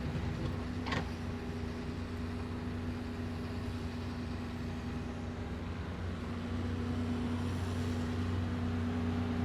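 Steady low hum of city street traffic, with vehicle engines idling and running, and a single short click about a second in.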